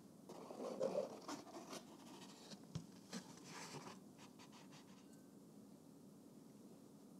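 Pulp egg carton opened and handled with a crinkly rustle, then one sharp tap and a few light clicks as eggs are cracked and the shells pulled apart for separating.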